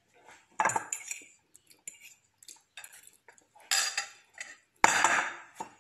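A metal fork clinking and scraping on a ceramic plate in a few short, sharp bursts, with small clicks between them.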